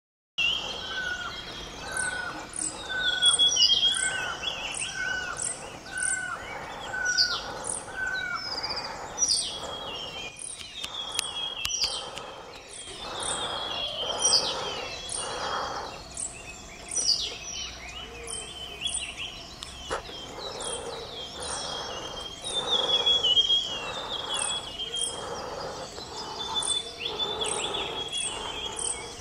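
Several wild birds singing and calling at once in forest, with many thin high notes and short downslurred songs overlapping throughout. In the first eight seconds a lower note repeats about three times every two seconds.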